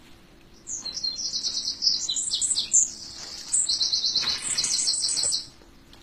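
A small songbird singing a long, fast, high-pitched trilling song of rapid chirps, with a brief dip about halfway through, stopping about a second before the end.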